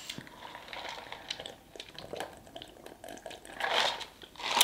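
Close-miked eating sounds: soft chewing and wet mouth clicks, then a louder sip from a cup about three and a half seconds in.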